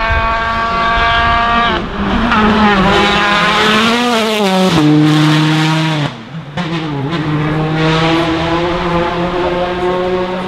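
Rally car engine at high revs under hard acceleration, the pitch climbing and then dropping sharply at upshifts about two and five seconds in. A brief lift off the throttle about six seconds in, then it pulls again with rising pitch.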